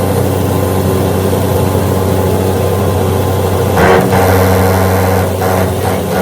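A motor-driven machine running steadily with a low, even hum and its overtones. About four seconds in there is a short burst of louder noise and the hum shifts slightly.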